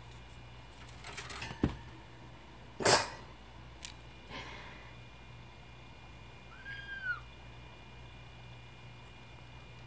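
Kitten jumping down from a wooden shelf in a wire cage: scrabbling and knocks on the wood, the loudest knock about three seconds in, then one short, high kitten mew about seven seconds in.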